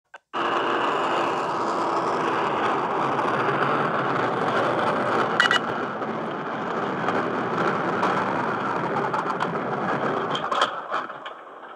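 Steady road and tyre noise inside a car at motorway speed, picked up by a dashcam's microphone, with a brief high electronic beep about five and a half seconds in. A few sharp clicks come near the end as the noise gets quieter.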